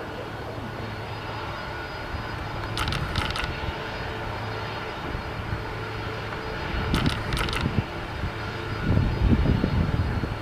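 Boeing 767 jet airliner's engines running, a steady hum with a low rumble that swells in the last few seconds. Two short clusters of sharp clicks cut in, about three and seven seconds in.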